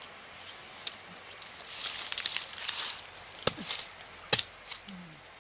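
Dry leaves rustling and crackling, then a few sharp knocks, the loudest about four seconds in, as a small whole watermelon is struck against a stone to break it open.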